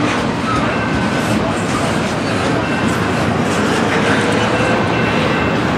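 Double-stack intermodal container cars rolling past at speed: a steady, loud rumble and clatter of steel wheels on rail, with faint thin wheel squeals now and then.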